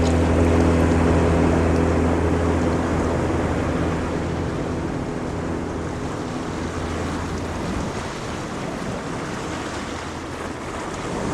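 Ocean waves washing in a steady rush, with a low, steady motor hum under it that fades out about halfway through.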